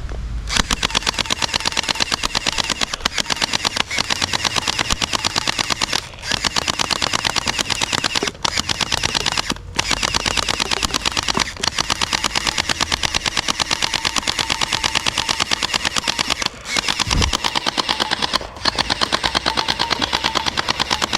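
Toy Thompson machine gun firing in long, rapid rattling bursts, broken by a few short pauses.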